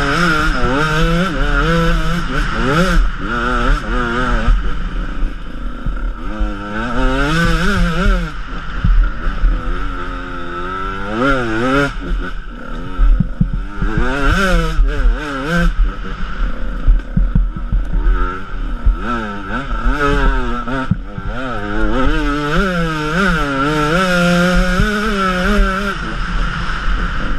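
Enduro dirt bike engine heard from on board, revving up and falling back again and again as the rider accelerates, shifts and rolls off along a rough trail.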